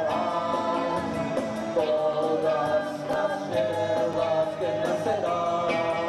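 Post-punk band playing live: sustained chords over a steady drum beat, with a voice singing.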